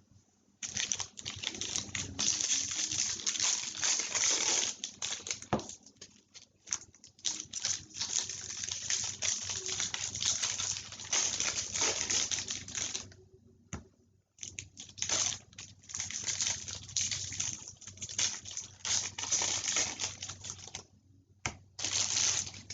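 Trading card packs being opened and handled: wrappers crinkling and cards clicking and sliding against each other, in long stretches with a brief pause a little past the middle.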